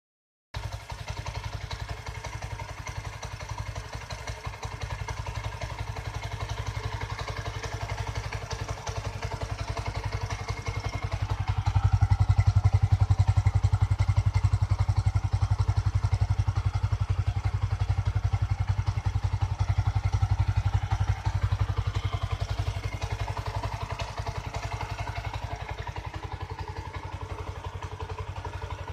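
Yamaha MX King 150's single-cylinder four-stroke engine idling steadily, hot after a 160 km nonstop ride. About twelve seconds in it runs louder for roughly ten seconds, then settles back to idle.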